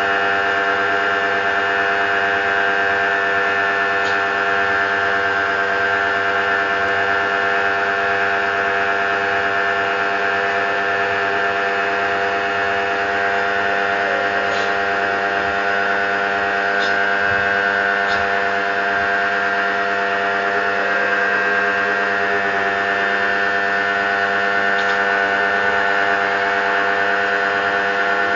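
Lotus pressure washer running steadily while spraying, its motor giving a constant loud hum with a few faint ticks.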